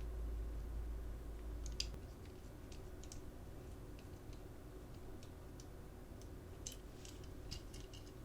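Faint, irregular clicks and taps of a small diecast model car being handled as its bottom plate is screwed on. The clicks come singly and in small clusters, a few close together near the end, over a low hum that drops away about two seconds in.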